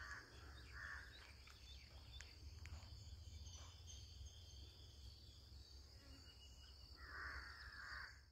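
Near silence outdoors with faint bird calls: two short calls in the first second and a longer, louder one near the end, over a steady low hum.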